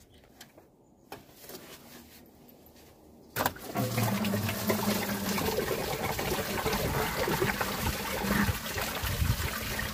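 Green engine coolant gushing out of the lower radiator hose just pulled off the water pump, falling in a steady stream to drain the cooling system. It starts suddenly after about three seconds of quiet.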